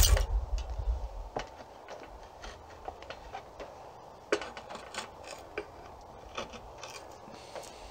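Draw knife blade scraping and peeling thin shavings off the back of an Osage orange bow stave around a knot: short irregular scrapes and clicks, the sharpest about four seconds in, with a low rumble in the first second.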